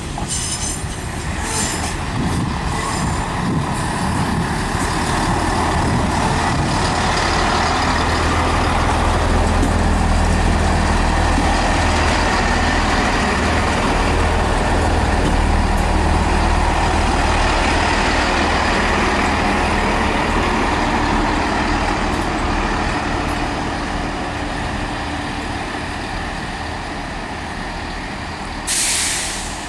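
Diesel train's engines running as it moves through the station, a deep rumble that grows louder, holds, then fades away. A short sharp hiss of released air comes near the end.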